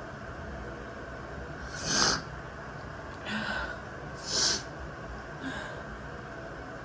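A woman sneezing twice, about two and a half seconds apart, with short, quieter sniffs after each, over the steady hiss of running shower water. The sneezes are an allergic reaction to a strongly scented body wash.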